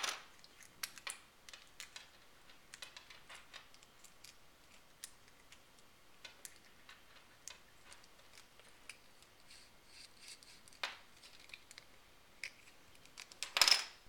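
Small plastic LEGO bricks and plates being handled and set down on a wooden table: scattered light clicks and taps, with a louder clatter near the end.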